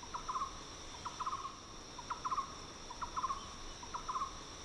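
Tropical rainforest ambience: an animal call repeating about once a second, each a short note followed by three or four quick clicks, over a steady high-pitched drone.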